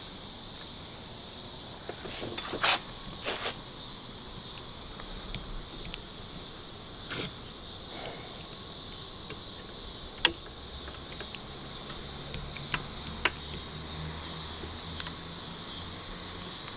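Scattered clicks, knocks and rubbing as rubber door weatherstripping is worked back and forth and pressed into the door's track, with the sharpest knock about ten seconds in. Insects keep up a steady high buzz behind it.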